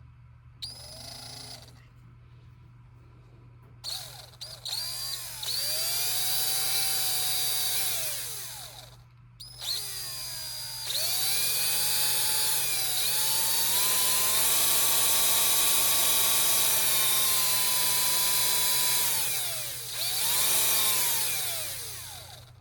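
Bare brushed DC motor from a DeWalt cordless drill, powered straight from the battery with no gearbox attached, whining as it spins. It starts four times, each time rising in pitch as it spins up and falling as it winds down: a brief blip, then runs of about five, ten and two seconds. It sounds pretty good, with no sign of the fault that made the drill smoke.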